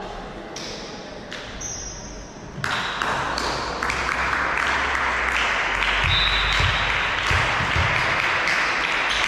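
Spectators at a volleyball match breaking into cheering and clapping about two and a half seconds in, then keeping it up.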